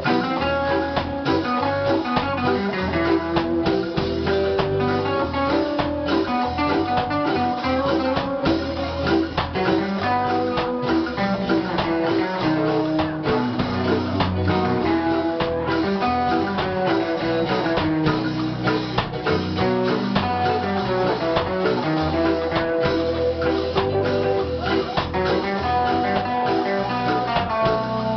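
A reggae band playing live, with electric guitars, keyboard and drum kit.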